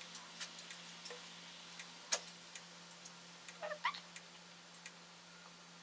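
Metal latch needles of a single-bed knitting machine clicking and ticking as they are pushed back one by one by hand to knit long loops. The clicks are scattered and light, the sharpest about two seconds in, with a brief squeak among a cluster of clicks near four seconds.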